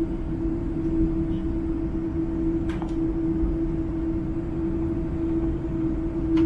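Cabin sound of a Boeing 787-10 taxiing with its GEnx-1B turbofans at idle: a steady hum over a low rumble. Two light clicks, one about two and a half seconds in and one near the end.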